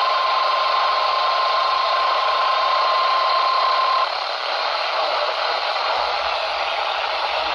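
Weather radio receiver sounding the NOAA Weather Radio 1050 Hz warning alarm tone over radio static. The tone signals that a warning, here a severe thunderstorm warning, is about to be read. It is one steady tone and cuts off about four seconds in, leaving the hiss of the broadcast.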